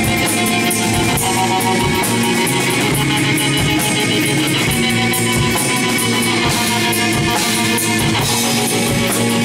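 A live metal band playing: electric guitar, bass guitar and drum kit, loud and steady, with sustained low notes and a regular beat on the cymbals.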